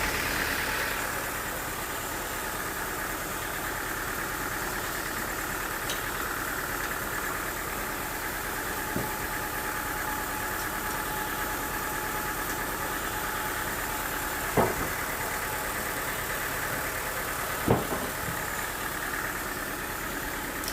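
Sawmill machinery running at a steady idle, with two sharp knocks about three seconds apart in the second half.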